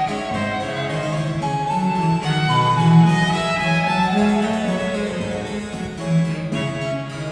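Baroque chamber ensemble playing a trio sonata: harpsichord continuo under melodic lines from baroque violin and recorder, with a viola da gamba bass line.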